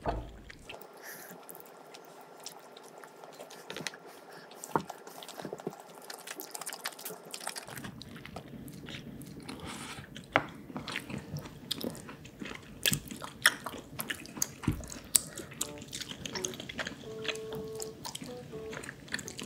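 Close-miked eating sounds from pizza kimchi tteokbokki: wet chewing and biting of rice cakes and stretchy melted cheese, with many sharp clicks of metal chopsticks against the tub. The clicks and chewing come thicker in the second half.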